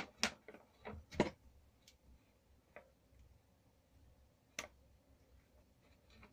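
Small sharp clicks of crimping pliers and a metal crimp connector being worked onto a red cable. There is a quick cluster of clicks in the first second and a half, then a fainter single click and one more sharp one a little later.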